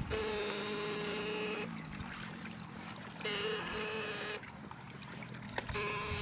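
Homemade platina-type electric fish shocker, powered by two car batteries, buzzing with a steady high hum in three bursts of one to two seconds while its probe is held in the canal water.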